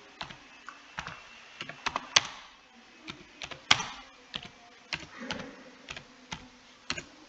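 Computer keyboard typed on slowly, single keystrokes clicking at an uneven pace, a few struck harder than the rest.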